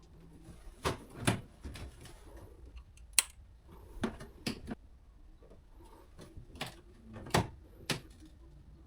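A handful of separate sharp clicks and light knocks, about seven spread over several seconds, the loudest about three seconds in: small objects being handled and set down.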